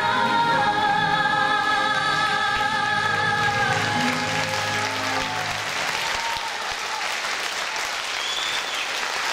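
Military wind band (saxophones, brass and clarinets) with a female singer holding the song's final sustained chord, which ends about four seconds in; audience applause then rises and carries on.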